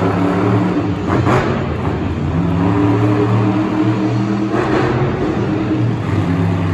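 Monster truck engines, supercharged big-block V8s, running and revving as the trucks drive across the arena floor, pitch rising and falling with the throttle.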